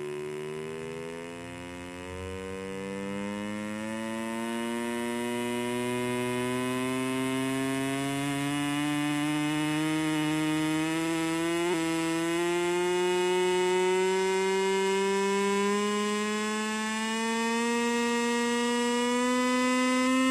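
A steady buzzing tone with many overtones, rising slowly and evenly in pitch, with a brief blip about twelve seconds in.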